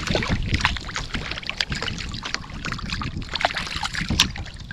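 A small hooked fish splashing and thrashing at the water surface right beside a kayak as it is reeled in, in short irregular splashes, over a low wind rumble on the microphone.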